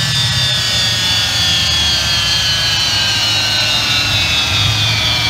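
Steeda's Mustang race car running on a chassis dyno: a steady engine drone under a high whine that falls slowly in pitch as the car winds down.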